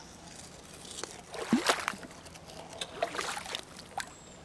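Small splashes, plops and trickles of shallow puddle water as a plastic toy crocodile is pushed into it, in short irregular bursts.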